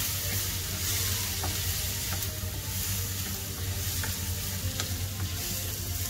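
Diced potatoes, onion and tomato sizzling in oil in a nonstick frying pan. A wooden spatula stirs them, with occasional light clicks as it scrapes the pan.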